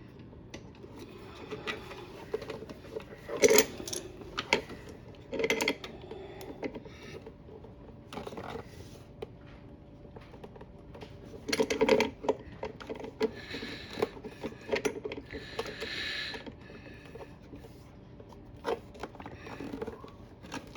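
Irregular clicks, knocks and clanks of tools and metal parts being handled as a threaded part on a clothes dryer's new motor is turned and tightened.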